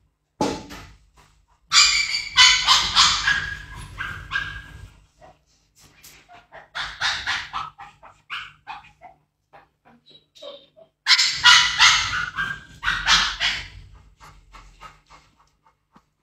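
A Labrador retriever making whining, grumbling vocal sounds in two bouts of about three seconds each, about two seconds in and again near eleven seconds, with shorter, quieter sounds between.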